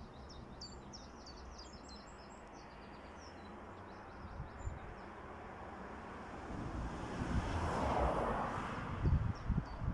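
Small birds chirping and twittering over a steady background hum of road traffic. About eight seconds in, a passing vehicle swells and fades, followed by a few low thumps near the end.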